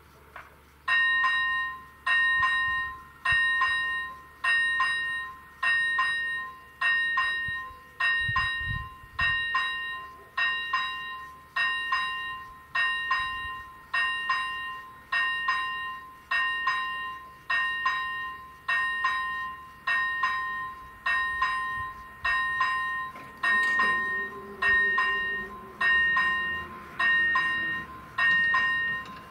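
Level-crossing warning bell starting about a second in, striking just under once a second with each ding ringing and fading, as the crossing activates for an approaching train. A faint, slowly falling hum sits under the strikes near the end.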